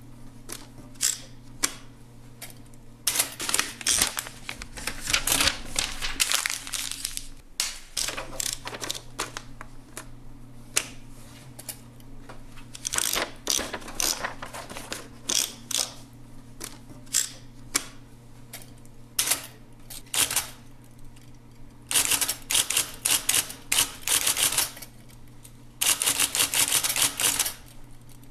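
Typewriter being typed on: runs of rapid keystrokes lasting a couple of seconds each, with pauses and scattered single strokes between, over a steady low hum.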